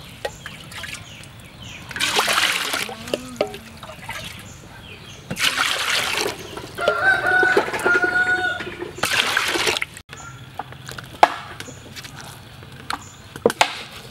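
Water poured into a metal cooking pot in three splashing pours, each about a second long. A rooster crows once in the background about seven seconds in.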